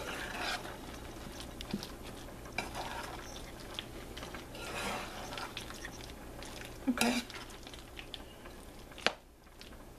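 A utensil stirring shredded cheese into a thick cream cheese taco dip in a mixing bowl: soft, uneven scraping and squishing, with a few sharp clicks of the utensil against the bowl.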